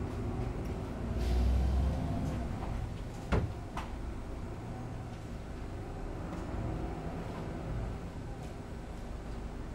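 Steady low rumble of a moving vehicle heard from inside, swelling briefly about a second in, with a sharp click a little over three seconds in and a fainter one just after.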